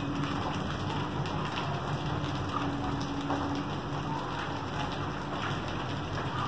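Heavy rain mixed with hail falling on a wet concrete courtyard: a steady, dense patter of drops and hailstones striking the ground.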